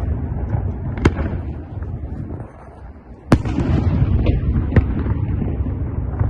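Fireworks salute: sharp bangs of bursting shells over a continuous low rumble of echoing explosions. The loudest bang comes about halfway in, right after a brief lull.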